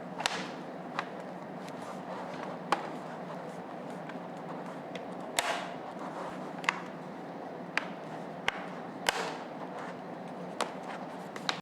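Sharp, irregular clicks and taps, about ten of them, as the laptop's bottom cover is fitted back on and handled, over a steady background hiss.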